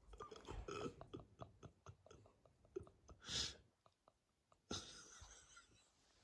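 A woman's near-silent laughter: a run of short gasping catches and throat clicks, then a sharp breath about three seconds in. Soft rustling of a blanket follows about five seconds in.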